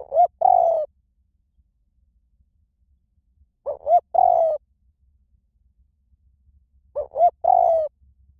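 Spotted dove cooing, a high-voiced bird. Three phrases come about three and a half seconds apart, each two short rising notes followed by a longer falling coo.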